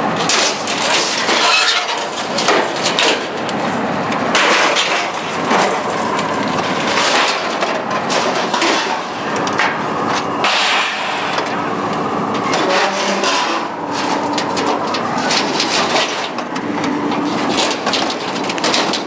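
Scrap metal clattering and banging in a dense run of repeated knocks and crashes.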